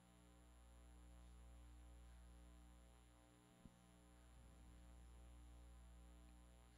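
Near silence with a faint steady electrical mains hum, and one small click about halfway through.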